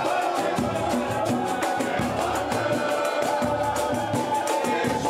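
Live samba jam: cuíca, acoustic guitar and pandeiro over a steady drum beat, with several voices singing together.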